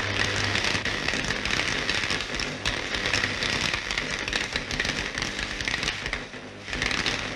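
Electrical laboratory apparatus sparking: a dense, steady crackle over a low electrical hum, dropping away briefly about six seconds in.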